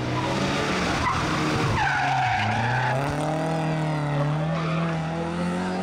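Rally car engine under hard acceleration, its note climbing steadily in pitch over the last few seconds, with tyres skidding on the road surface.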